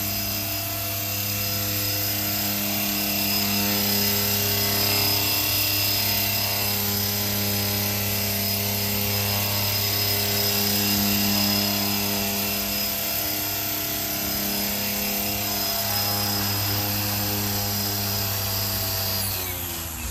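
450-size radio-controlled CH-46 tandem-rotor model helicopter hovering: its electric motors and twin rotors hum steadily, the level wavering slowly as it holds the hover. Near the end the hum falls in pitch as the rotors wind down for the landing.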